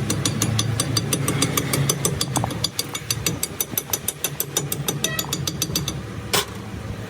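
Metal lathe running with a low hum and a rapid, even ticking of about seven ticks a second. The ticking stops about six seconds in, followed by a single sharp click.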